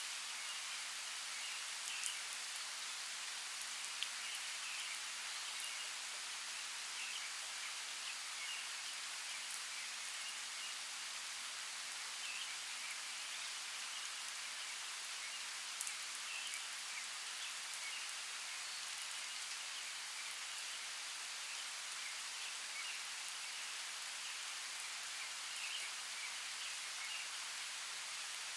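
Steady hiss of rain on a forest, with faint, scattered bird chirps and a few sharp drip-like ticks.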